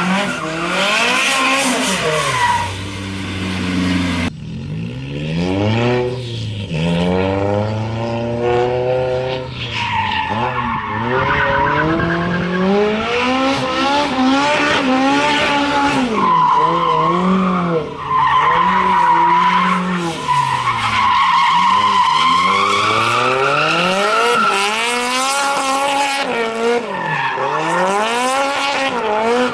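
Toyota AE86 Trueno's engine revving up and down over and over, with long tyre squeals, as the car drifts and swings side to side in a manji. The engine pitch climbs and drops every second or two, and the sound changes abruptly about four seconds in.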